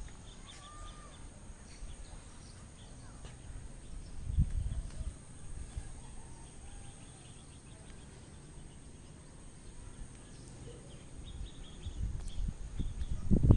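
Outdoor ambience with faint distant bird calls, including chicken-like calls, and a few low bumps on the microphone, about four seconds in and again near the end.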